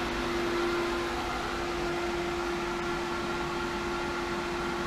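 Hayward Super Pump VS variable-speed pool pump running steadily at high speed and moving about 75 gallons per minute. It makes an even hum with one clear held tone over a steady rushing noise.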